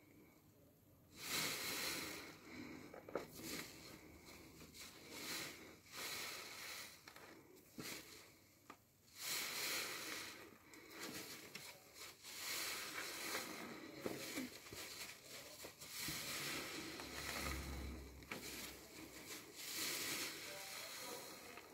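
Wet soapy foam squishing and crackling as a car-wash sponge is squeezed and kneaded in a tub of thick lather, in repeated squeezes of a second or two each, starting about a second in.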